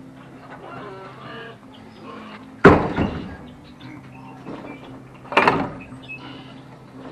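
Two sharp knocks about two and a half seconds apart, each trailing off over about half a second, with faint clucking of chickens behind them.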